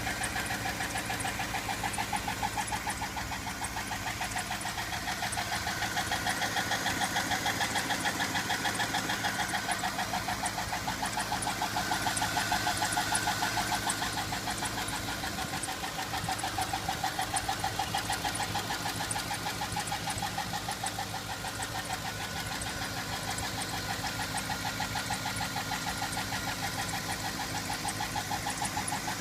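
Car engine running under an open hood with a rapid, steady ticking knock from the valvetrain, typical of what could be a failed Displacement on Demand (DoD) lifter.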